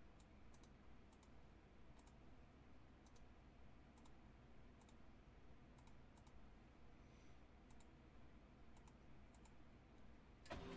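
Near silence with a dozen or more faint, irregular clicks from a computer mouse and keyboard.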